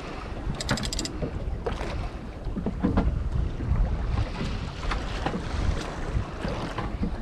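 Wind buffeting the microphone over the steady run of a boat and the wash of water. About a second in there is a short burst of rapid clicking.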